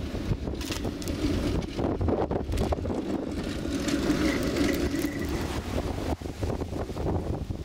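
Strong wind buffeting the microphone in a snowstorm, over the running noise of an articulated tram passing on snowy track. A faint thin high tone sounds briefly about four to five seconds in.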